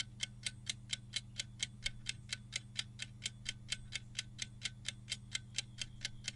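Clock-style ticking sound effect of a quiz countdown timer, quick even ticks at about four to five a second over a faint steady low hum.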